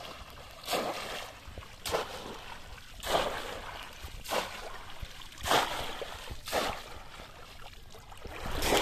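Pond water splashing as a conical bamboo fish trap is slammed down into it again and again, one short splash about every second.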